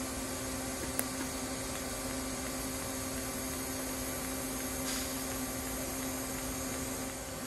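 Steady electrical hum and hiss of a TIG welding setup, with a single sharp click about a second in. The arc welding stainless exhaust tubing with no filler rod adds no clear sound of its own over the hum.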